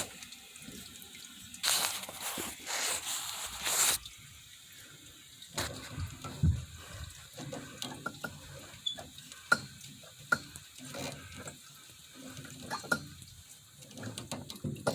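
Water hissing and rushing from a leaking hot water heater, loudest for about two seconds near the start, then scattered small clicks and knocks.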